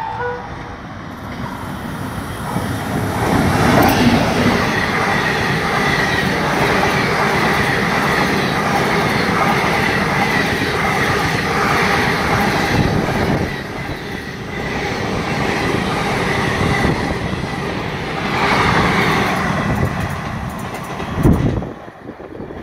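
WAP-7 electric locomotive and a rake of ICF passenger coaches passing at speed, just after the tail of a horn blast. The rumble builds as the locomotive arrives about three seconds in, then runs on as a steady clatter of wheels over the rails with a thin high whine. A sharp loud burst comes near the end, and then the noise drops away as the train recedes.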